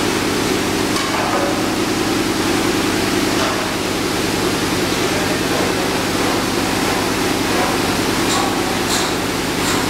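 Steady drone of running process machinery: a constant low hum under an even rushing noise. About eight seconds in, faint light ticks begin, coming at a regular pace of roughly three every two seconds.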